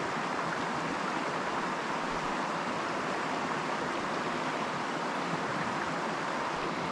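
Creek water running steadily, an even rushing with no breaks.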